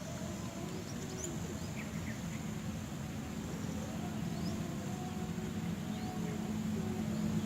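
Outdoor background: a steady low engine hum, a little louder toward the end, with a few faint bird chirps and a thin high insect whine.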